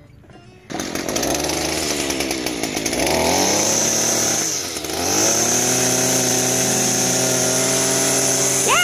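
Echo SRM-230 string trimmer's small two-stroke engine catching after a starter pull and running, revving up, dropping back once and revving up again as the newly replaced throttle trigger is worked.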